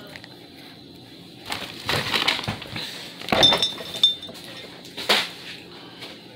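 A few sharp clinks and knocks of hard objects being handled and set down, with a short ringing clink in the middle of the run.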